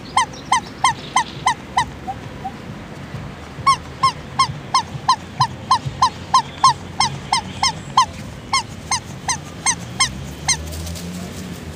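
A squeaky toy squeezed over and over, about four short identical squeaks a second, as the recall signal that ferrets are trained to come to. The squeaking pauses about two seconds in, starts again, and stops near the end.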